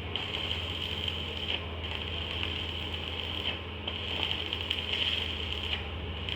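A machine running steadily, with a low hum, a fast even pulsing and a few light clicks of mechanical clatter.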